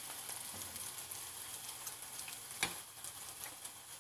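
Coated cauliflower florets deep-frying in hot oil: a steady sizzle with fine crackling, the florets about 70% done. One sharper click about two and a half seconds in.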